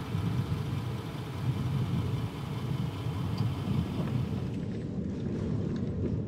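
Pickup truck driving: a steady low rumble of engine and road noise.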